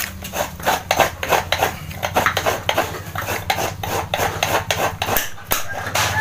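Fresh coconut meat grated by hand against the toothed metal blade of a coconut grater (kudkuran): quick rhythmic scraping strokes, about three a second, over a steady low hum.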